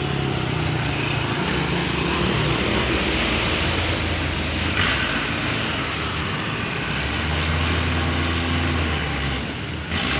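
Large bus diesel engines running amid road traffic noise, with a steady low engine drone that grows stronger about two-thirds of the way through. A brief hiss comes about halfway through.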